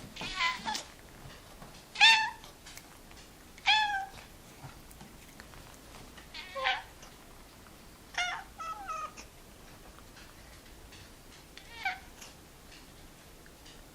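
Cat meowing: about eight short calls at irregular intervals, each sliding down in pitch, with a quick run of three a little past the middle.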